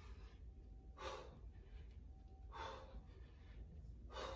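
A woman's hard breathing from exertion: three short, sharp exhales about a second and a half apart, one with each squat and knee lift.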